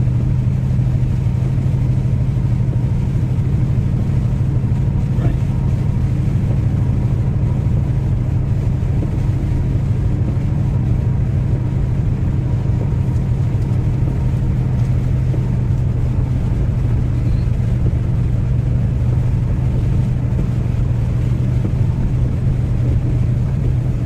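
A car being driven: a steady drone of engine and road noise with a strong, deep hum that does not change.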